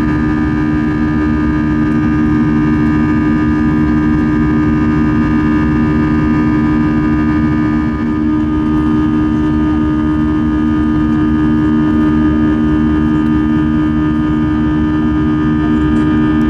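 Airbus A320 cabin noise during the climb after takeoff: the jet engines' steady drone with a strong low hum and several steady higher tones, unchanging in level.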